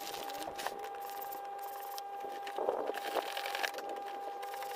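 A partly inflated wing and its hand pump being handled: a few brief rustles and a sharp click about two to three and a half seconds in, over a steady high hum.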